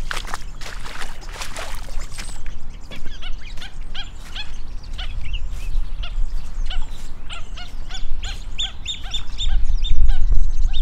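Waterfowl calling: a long run of short, repeated calls, several a second, starting a couple of seconds in. Footsteps at the start, with a low rumble underneath that grows loud near the end.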